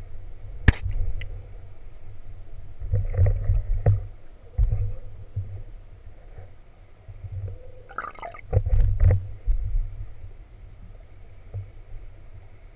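Muffled underwater sound picked up by a submerged camera: a low rumble of water moving against it, with a sharp knock about a second in and louder muffled swishes and bubbling around three to four seconds and eight to nine seconds in, dying down near the end.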